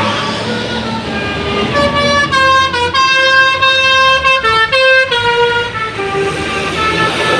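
A bus's Basuri "telolet" multi-tone musical horn playing a short tune of held notes that step up and down in pitch, starting about two seconds in and lasting about four seconds, over steady background noise.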